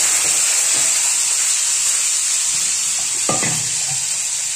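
Green peas sizzling steadily as they fry in hot oil in a pan.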